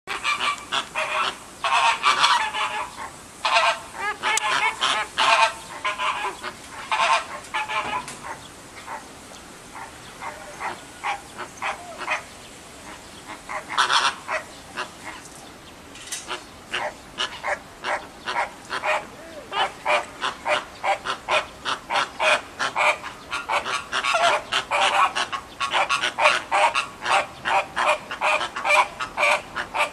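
American flamingos honking, goose-like. There are scattered calls at first and a lull in the middle, then a rapid, overlapping run of about three calls a second through the second half.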